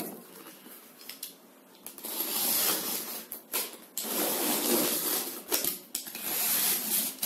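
Rustling and scraping from handling a cardboard box wrapped in plastic film, with a sleeve brushing close to the microphone. It comes in three long noisy stretches with a few clicks between them.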